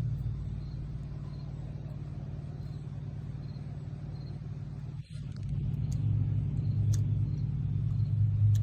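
A steady low mechanical hum, like a motor running, that drops out suddenly for a moment about five seconds in and comes back louder.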